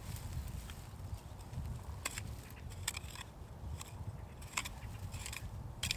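Small hand tools scratching and clicking in loose soil as tubers are dug by hand: about half a dozen short, irregular scrapes over a steady low rumble.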